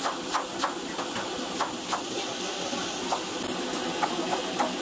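Chef's knife chopping onion and green chilli on a wooden cutting board: about a dozen irregular sharp taps of the blade on the wood, over a steady hiss.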